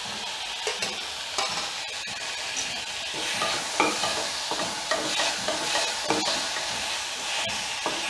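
Chopped tomatoes and onions sizzling in hot oil in a pressure cooker while a spoon stirs them, scraping the pan about half a dozen times.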